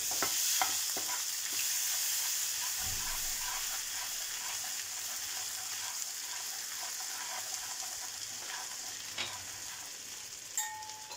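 Ghee and butter sizzling with ginger and garlic in a frying pan, stirred with a metal slotted spoon that clicks against the pan a few times in the first second or so. The sizzling slowly quietens.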